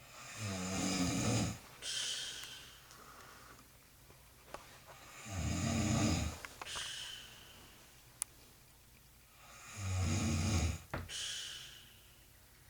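A woman snoring in her sleep: three long, low, rattling snores on the in-breath, about four to five seconds apart, each followed by a short breathy out-breath.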